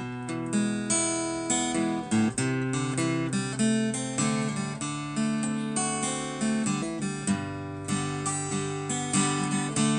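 Instrumental break of a slow blues song: guitar chords played with no singing, with a steady rhythmic pulse.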